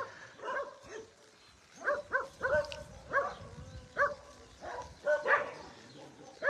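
Dogs barking: a string of short, fairly high barks in quick runs of two or three, starting about two seconds in.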